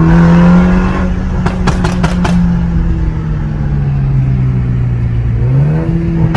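Toyota GR Supra's B48 2.0-litre turbocharged four-cylinder, breathing through a catless downpipe and valvetronic exhaust, heard from inside the cabin while driving: the engine note climbs at the start, holds, sinks slowly, then climbs steeply again near the end. A quick cluster of sharp exhaust pops crackles out about two seconds in.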